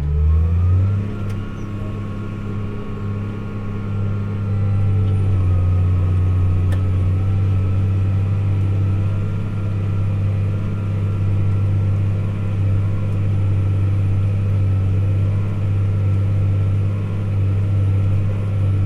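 Farm tractor's diesel engine revving up in the first second, then running steadily at working speed while pulling a chisel plow through the field.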